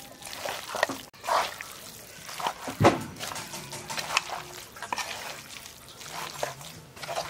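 Wet, irregular squelching and clinking as raw beef is worked together with wet ground spice paste and salt in a pot, with one louder knock about three seconds in.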